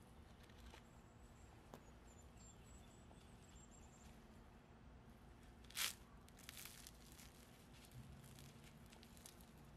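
Crisp deep-fried potato fritter being torn open by gloved hands: one short crackling crunch about six seconds in, then a few softer crackles, against near silence.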